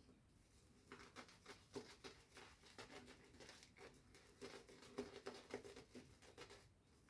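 Faint, quick scratchy strokes against the face during a wet shave. They start about a second in and stop near the end.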